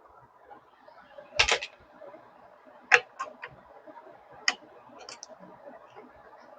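A few sharp clicks and light knocks of something being handled. The loudest comes about a second and a half in, a quick run of three or four follows around three seconds, and single clicks come later.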